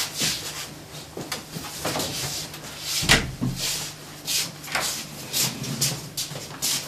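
Footsteps and shuffling of several children walking across a room and out through a doorway, with scattered knocks and a louder thump about three seconds in, over a steady low hum.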